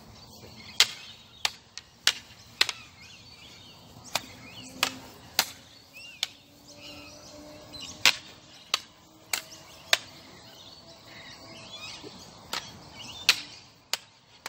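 Long training sticks striking an umbrella and each other in a stick-fighting drill: a series of sharp, irregular clacks, often in quick pairs, with a pause about ten seconds in. Faint birds twitter behind.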